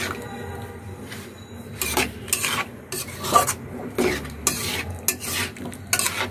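A metal spatula stirring and scraping small fried potatoes through thick, yogurt-laced masala gravy in a metal pot. The strokes come unevenly, about once or twice a second.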